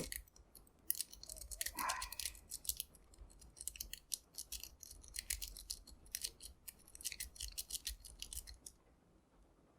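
Lock-pick rake scraping and clicking quickly in and out of a cheap padlock's keyway, with a tension tool in place: a dense run of faint small clicks that stops about a second before the end.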